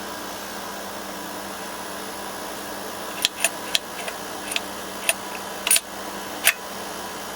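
Sharp metal clicks and knocks of a quick-release steering-wheel hub being handled and latched back on, a quick irregular run of about eight clicks starting about three seconds in, over a steady background hum.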